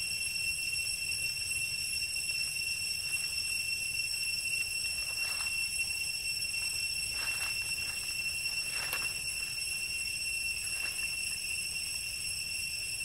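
Steady, high-pitched drone of insects in the forest canopy, unchanging throughout, with four short soft noises about 5, 7, 9 and 11 seconds in.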